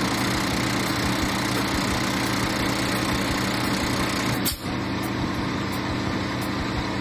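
Semi truck's diesel engine idling steadily, with a brief dip about four and a half seconds in.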